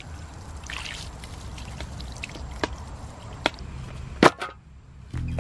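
Water poured from a mug trickles and splashes over a whole raw chicken as it is rinsed by hand. A few sharp knocks come through, the loudest about four seconds in.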